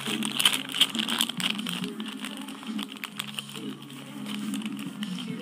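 Plastic Beyblade packaging crinkling and clicking as it is handled, in quick, irregular clicks that are densest in the first couple of seconds and sparser after.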